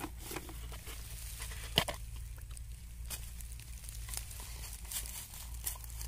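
Hands handling a plastic bait bowl and bucket on dry straw: scattered light clicks and rustles, with one sharper click a little under two seconds in, over a steady low hum.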